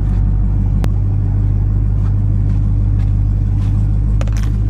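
A steady, loud, low engine drone, like a motor vehicle idling, with a single sharp click about a second in.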